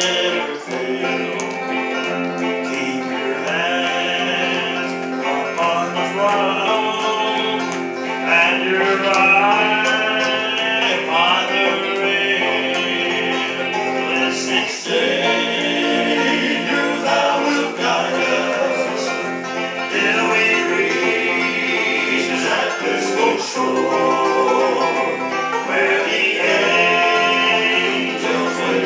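Southern gospel group performing live: several men singing in harmony over banjo, electric guitar and electric bass.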